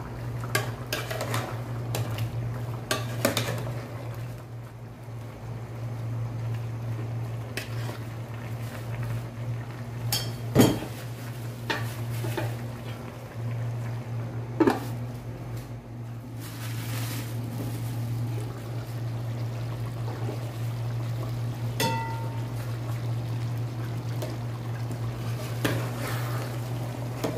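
A metal utensil scraping and knocking against a stainless steel pot while chicken and eggplant are stirred, with a few sharper clanks, over a steady low hum.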